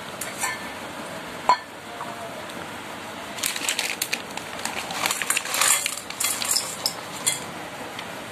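Triangular Bingo Mad Angles chips poured from their plastic packet into a stainless steel bowl, a run of rattling, clinking clicks against the metal from about three seconds in. A single sharp knock comes about a second and a half in.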